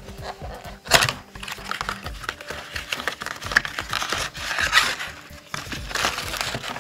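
Packaging of a trading-card blaster box being opened and handled: cardboard and pack wrappers crinkling and tearing, with a sharp rip about a second in.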